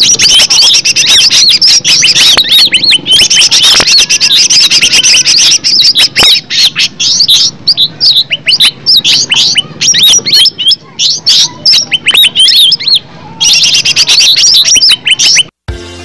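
Greater green leafbird (cucak ijo) singing loudly: a fast, unbroken run of sharp chirps and looping whistled notes. It cuts off about half a second before the end, where music begins.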